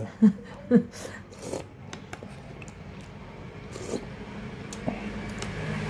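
A metal spoon scraping and clicking against a dish while eating, a few short scrapes and clicks scattered over a low steady background hum. Two short vocal sounds come in the first second.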